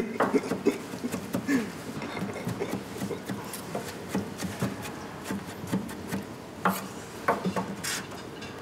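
Kitchen prep: knives chopping and scraping on cutting boards, with utensils clinking, in irregular knocks rather than a steady rhythm.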